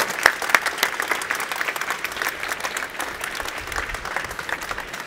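Audience applauding, many hands clapping, tapering off toward the end.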